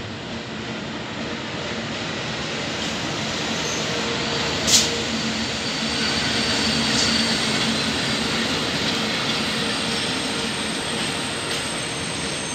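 FS E652 electric locomotive hauling a container freight train, arriving and rolling past. A steady hum sits under the noise of the wheels on the rails, growing louder as the locomotive comes close. A short sharp click comes about five seconds in.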